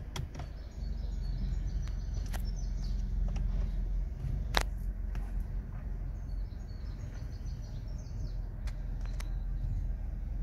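A handful of sharp clicks and knocks, the loudest about four and a half seconds in, over a steady low rumble, with small birds twittering in the background in two short spells.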